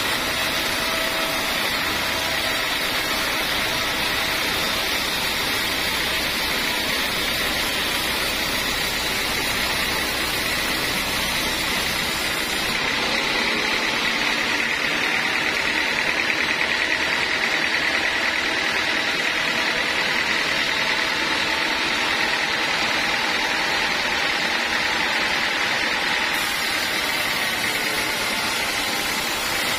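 Large band sawmill running, its blade sawing lengthwise through a big log with a steady, loud whine. About halfway through the sound gets a little louder and brighter for several seconds, then eases back.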